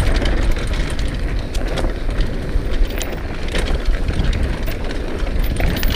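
Downhill mountain bike running fast down a dirt singletrack: tyres rolling over dirt and grass, with scattered sharp clicks and rattles from the bike over bumps. Wind buffets the microphone throughout.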